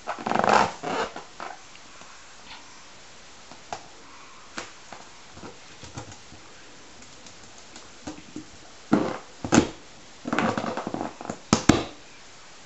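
Inflated rubber balloons being grabbed, rubbed and knocked about by a baby: irregular bursts of rubbing and handling noise with small knocks between. The loudest bursts come right at the start and again over the last few seconds.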